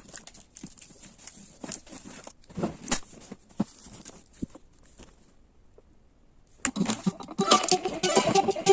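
Scattered light clicks and short rustles, like small objects being handled, then a moment of near silence; music starts about seven seconds in and grows louder.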